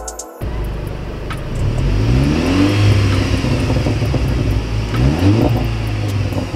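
Seat Leon Cupra 280's 2.0-litre turbocharged four-cylinder engine revved while stationary, rising twice in pitch, about two and five seconds in.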